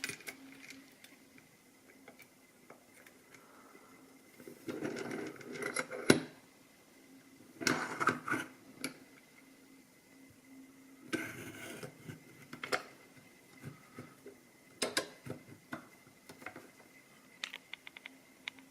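A small padlock being handled at close range: scattered metallic clicks and short rattling, rustling bursts, with a few quick ticks near the end.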